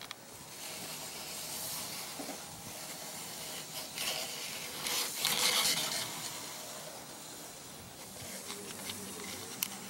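Screen installation tool pressing aluminum screen mesh into the metal frame channel of an RV screen door: a soft scraping hiss that grows louder for a couple of seconds around the middle.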